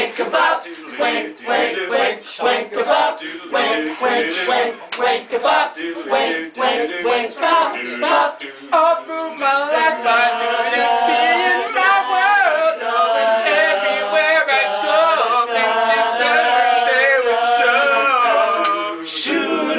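A small group of mostly male voices singing a cappella in harmony. Through the first half, sharp beats about twice a second keep time. From about halfway the voices hold long sustained chords together, and they cut off together just before the end.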